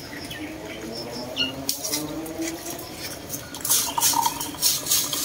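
Brewed coffee poured from a French press into ceramic mugs: liquid trickling into a mug with a faintly rising pitch as it fills, then louder splashing from about three and a half seconds in.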